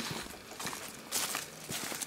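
Footsteps of people walking on a forest path covered in dry leaf litter.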